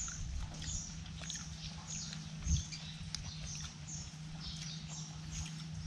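Outdoor ambience: a short high chirp repeating at an even pace, somewhat under two a second, over a steady low hum, with faint clicks and a dull knock about two and a half seconds in.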